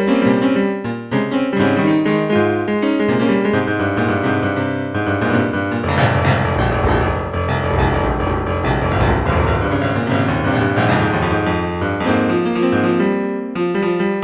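Piano music with many quick notes, growing fuller and denser with deep bass notes from about six seconds in before thinning again near the end.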